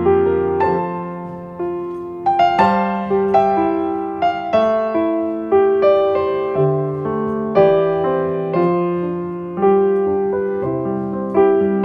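Background piano music: notes and chords struck and left to ring out, at an unhurried pace.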